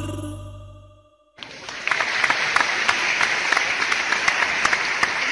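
The song's final held note, with vibrato, fades out over the first second. About a second and a half in, applause starts abruptly and carries on steadily.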